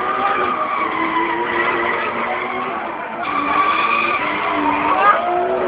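Drift car sliding through a corner: engine revving up and down over tyres screeching on asphalt, with a sharp rise in pitch about five seconds in.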